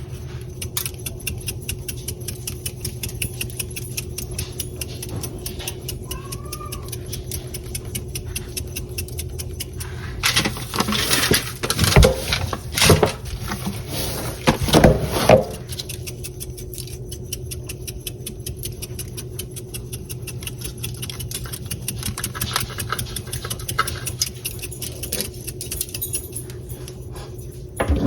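Dry oregano being sprinkled and crumbled over raw ribs: a dense patter of fine ticks and crackles, with a burst of louder knocks and rustling about ten seconds in that lasts some five seconds.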